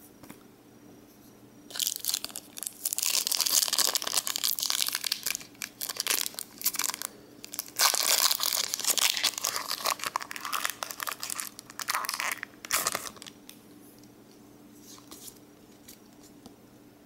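A foil Pokémon booster pack being torn open and crinkled by hand. There are two long stretches of tearing and crinkling, starting about two seconds in and about eight seconds in, then a brief crinkle near the end.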